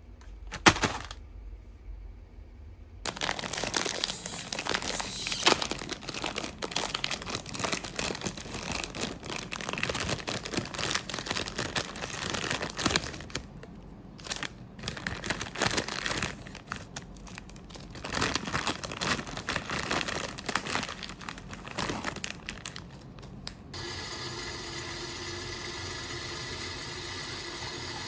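Crinkly plastic packaging of an instant noodle pack being torn open and handled, in bursts of crackling with short pauses. Near the end this gives way abruptly to a steady, even humming rush.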